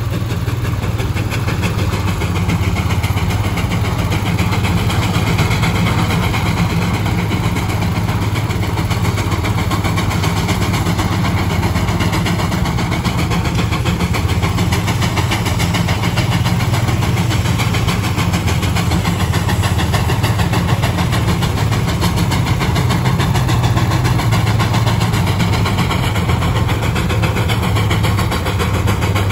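An engine running steadily at an even speed, with a fast, dense firing rhythm.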